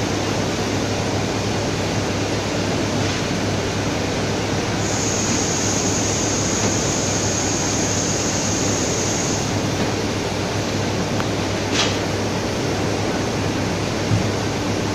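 Steady machine noise with a low hum from a running belt conveyor bag stacker. A high steady whine sounds for about five seconds in the middle, and there are two short knocks near the end.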